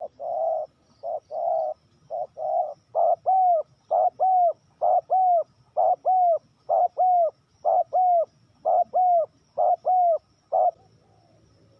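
Spotted dove cooing: a long run of loud coos, a few longer notes at first, then quick pairs of short falling notes at about one pair a second, stopping shortly before the end.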